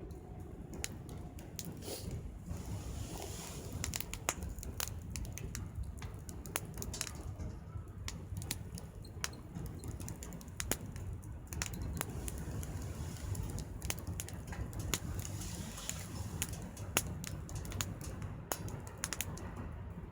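Small wood fire crackling, with irregular sharp pops and snaps over a steady low rumble.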